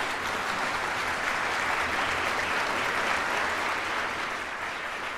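Audience applauding steadily: many people clapping together.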